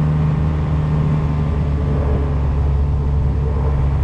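Kubota X1120D side-by-side's diesel engine running at a steady speed under way, a constant low drone with no change in pitch.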